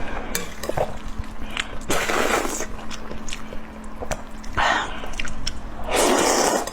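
Close-miked chewing and mouth sounds of someone eating, with many crisp smacks and clicks. Three louder rushes of noise come about two seconds in, near five seconds and near the end.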